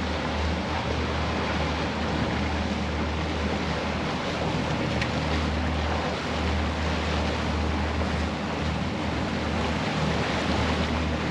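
Steady rush of wind and churning water from a fishing boat under way, with its twin outboard motors running underneath and wind buffeting the microphone into a low rumble.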